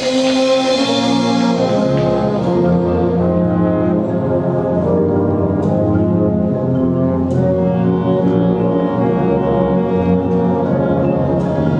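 High school marching band playing a loud passage of long held brass chords over sustained low brass, coming in louder right at the start, with a few sharp percussion hits.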